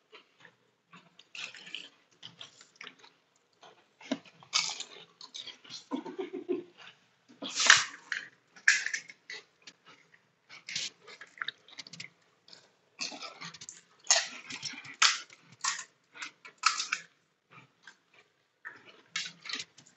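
Two people eating pani puri: irregular crunching and chewing of the crisp fried puri shells, with a loud crunch about eight seconds in.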